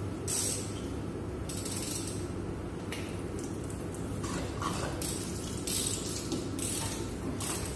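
Short raspy, ratcheting strokes from a hand tool working the metal fittings of a chilled-water line strainer, repeating about once a second, over a steady low machinery hum.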